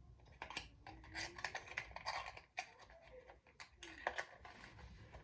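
Faint, scattered light clicks, taps and rustles of small plastic toys being handled.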